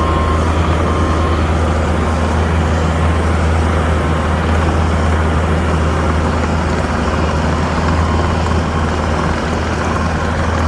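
Skid steer's diesel engine running steadily under load with a deep, even drone. Near the start a faint backup alarm beeps.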